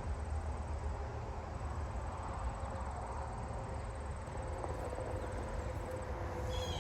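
Steady low rumble of distant vehicles, with a faint high steady whine above it and a few short chirps near the end.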